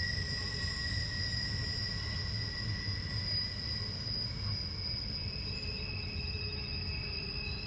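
Norfolk Southern freight train's wheels squealing as it rounds a curve: steady high squeal tones that fade and change pitch partway through, over a low rolling rumble.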